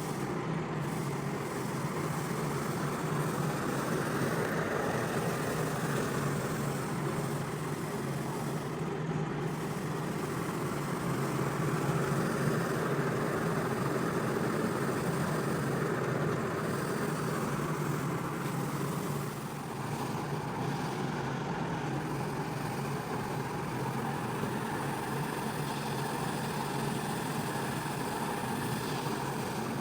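Pressure washer running steadily: a constant motor hum under the hiss of a water jet on a rug. The sound swells slightly about halfway through and dips briefly a little later.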